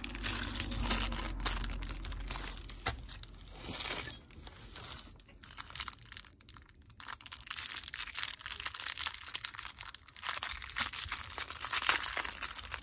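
Small clear plastic packaging bag crinkling as hands handle and open it, in irregular crackles, with a lull about six seconds in and loudest near the end.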